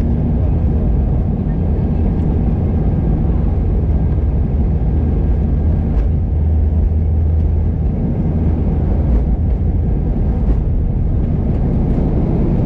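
Steady low rumble of an Airbus airliner's jet engines and airframe heard from inside the cabin while the aircraft taxis, with a few faint clicks.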